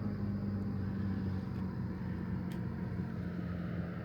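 Motorboat engine running steadily with a low, even drone.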